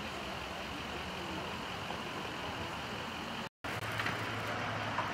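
Steady outdoor road-traffic noise, an even hiss with a low rumble. The sound drops out for an instant about three and a half seconds in, then comes back with a low steady engine hum and a few faint knocks.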